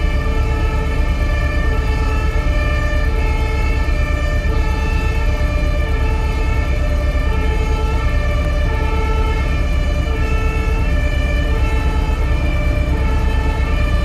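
Two-tone emergency siren of an approaching airport fire engine, steadily alternating between a lower and a higher pitch. A strong steady low rumble runs beneath it.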